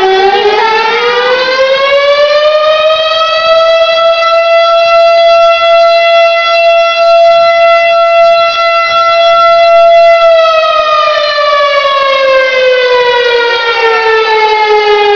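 Fire station siren sounding a fire alarm in one slow wail. The pitch rises over the first few seconds, holds steady for about seven seconds, then falls away near the end.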